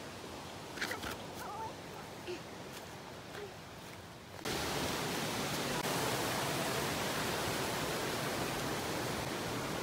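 Rushing water of a rocky forest stream: quiet with a few short faint chirps at first, then from about four and a half seconds in a loud, steady rush of flowing water.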